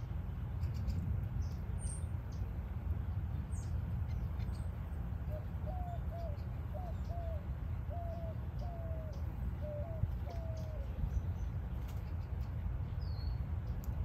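A bird gives a run of about eight short, low notes, each rising then dipping slightly, spread over some five seconds from about five seconds in. Faint high chirps are scattered throughout, over a steady low rumble.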